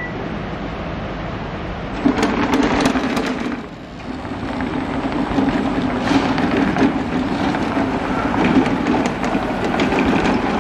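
Yamaha gasoline engine of a remote-control tracked lawn mower running steadily as the mower drives over concrete. The sound dips briefly about four seconds in, then picks up again.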